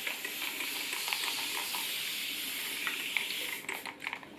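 Water misted from a spray bottle onto a strand of curly hair to wet it: a steady hiss lasting about three and a half seconds that fades out near the end.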